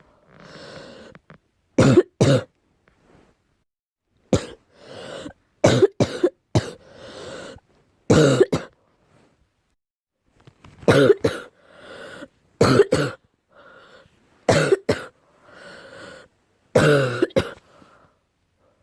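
Deep coughing in repeated bouts, often two coughs at a time, about every two seconds, with audible breaths drawn in between. The uploader tags it as an allergy cough.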